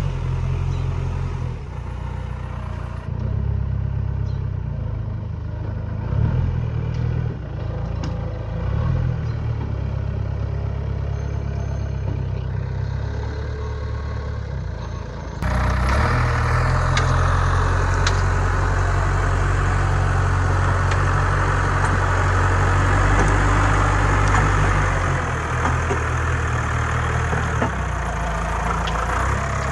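Diesel engine of a loader working on a building site, running steadily with a low drone that shifts in pitch now and then. About halfway through the sound jumps suddenly louder and brighter, with metallic clatter and clicks over the engine.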